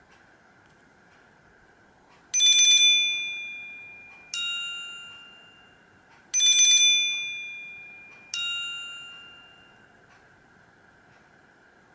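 A Nokia C3-01 stock ringtone: a two-note bell-like chime, a bright higher strike with a fluttering start followed two seconds later by a lower strike, each ringing out and fading. The pair plays twice.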